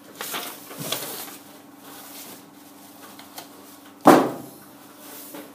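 Paper rustling as a drawing sheet is handled, then a single sharp knock about four seconds in, over a faint steady hum.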